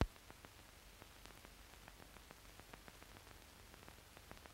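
Faint hiss and low hum of an old film soundtrack with no program sound, crackling with scattered small clicks and two sharp pops, one at the start and one at the end.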